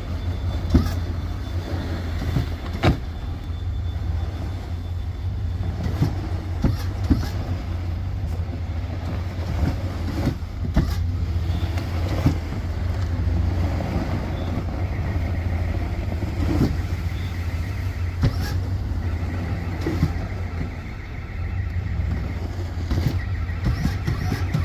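Vehicle engine running with a steady low drone, with frequent scattered knocks and clunks.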